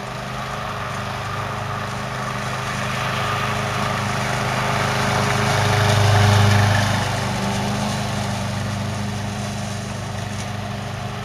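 Hybrid remote-control slope mower's gas engine running steadily under way, a low hum that swells louder about halfway through and then eases back.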